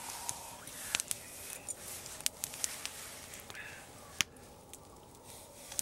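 Small wood campfire crackling, with irregular sharp snaps and pops; the loudest snap comes about four seconds in.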